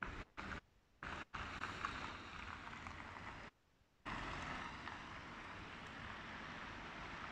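City street noise: passing traffic on a wet road, mixed with wind on the microphone. It stops dead and comes back several times in the first four seconds, then runs steadily.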